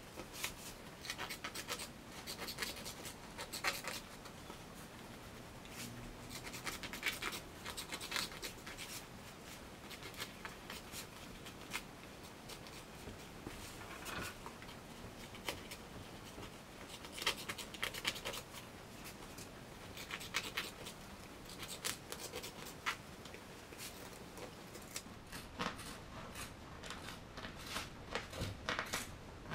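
Scissors snipping and fabric rustling as excess upholstery fabric is trimmed from the underside of a chair seat, in irregular clusters of short strokes.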